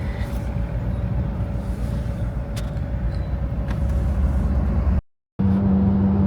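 Steady road and engine rumble inside a moving car's cabin, with kayaks strapped on the roof. After a brief cut to silence about five seconds in, a strong steady hum comes in: wind humming over the roof-mounted kayaks.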